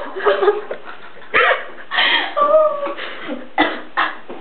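A person making short non-word vocal sounds: a few brief sharp yelps and one drawn-out cry with a wavering pitch near the middle.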